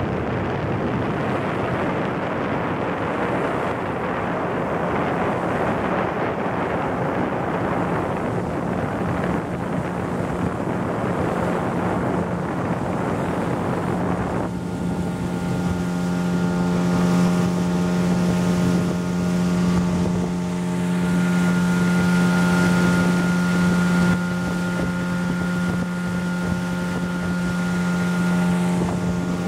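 Motorboat under way at speed, with wind buffeting the microphone and rushing water. About halfway through, the engine's steady, even drone comes through clearly over the noise.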